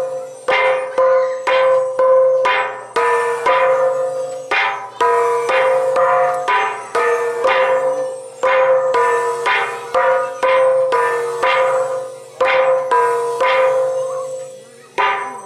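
A Mizo darbu, a set of three hand-held bossed gongs of different pitch, struck with padded beaters in a steady interlocking rhythm of about two strokes a second, each stroke ringing on and fading.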